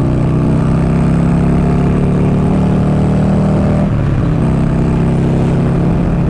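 Buell XB12SS Lightning Long's 1203 cc air-cooled V-twin running under way, heard from the rider's seat. The pitch slowly rises, then drops sharply about four seconds in before it steadies again.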